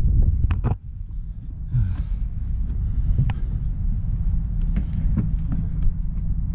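Steady low outdoor rumble with a few sharp clicks and taps, and a brief drop in level about a second in.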